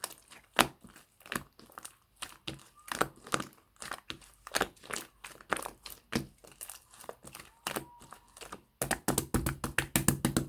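Clear slime with mixed-in bits being squeezed and pressed by hand, giving sharp crackling clicks and pops a few per second. The clicks come fast and close together about nine seconds in.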